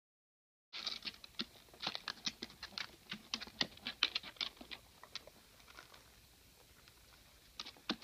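A dog's paws and claws on a wooden wobble board: quick, irregular clicks and taps as she shifts her weight and the board rocks. They start after a moment of silence, thin out past the middle and pick up again near the end.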